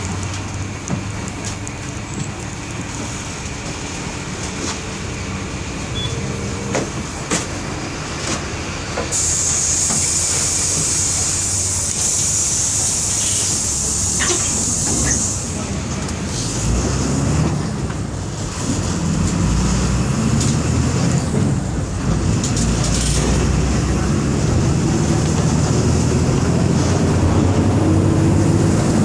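Volkswagen 17.230 EOD bus's diesel engine running, with a hiss of released air lasting several seconds about a third of the way in. Light rattles and clicks come through, and the engine grows louder through the second half as it pulls harder.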